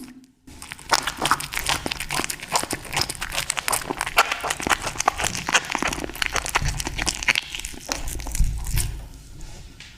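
Kittens eating tuna close to the microphone: rapid wet smacking and chewing clicks, starting about half a second in and thinning out near the end.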